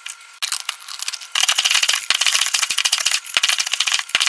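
Broken graham cracker pieces rattling hard inside a lidded glass jar that is shaken rapidly to crush them into crumbs; the rattling starts about half a second in.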